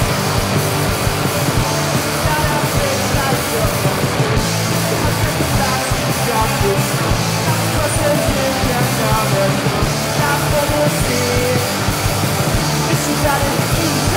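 Rock band playing live: electric guitars, bass guitar and drums, with a lead singer at the microphone.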